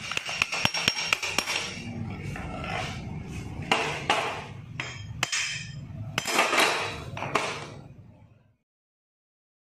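Metal tapping and clinking on a Vespa engine crankcase and gear shaft during disassembly. A quick run of light taps comes in the first second and a half, then scattered heavier strikes, and the sound fades out about eight and a half seconds in.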